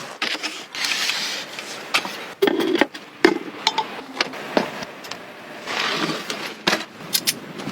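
A series of irregular knocks and clatters, a dozen or so sharp strikes of varying loudness with short pauses between them.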